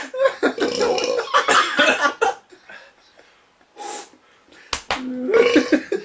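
Men laughing hard for about two seconds, then a lull broken by two sharp knocks, and another loud burst near the end.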